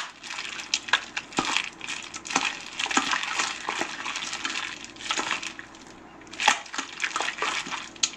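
Chicken thigh pieces kneaded by plastic-gloved hands in a marinade in a stainless steel bowl: an irregular run of wet squishes and sharp clicks.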